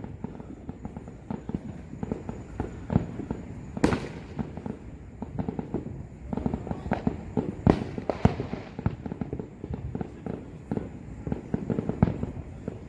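Consumer fireworks going off all around: a steady run of distant pops and crackles with a few louder bangs, the loudest about four seconds in and again near eight seconds.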